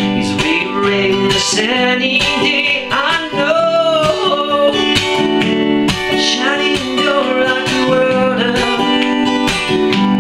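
Acoustic guitar strummed in steady chords, with a harmonica playing the melody over it in bending, sliding notes.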